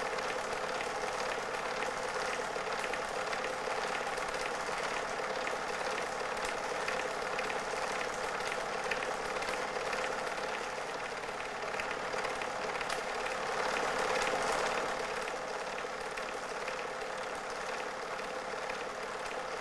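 Super 8 film projector running: a steady mechanical whirr with a constant hum, swelling slightly about two-thirds of the way through.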